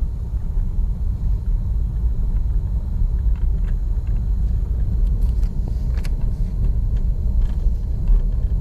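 Car interior while driving slowly on a snowy road: a steady low rumble of engine and tyres heard from inside the cabin, with a few faint ticks.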